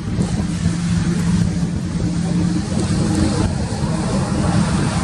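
Union Pacific diesel locomotives pulling a coal train past at speed: a steady low engine drone with a constant hum.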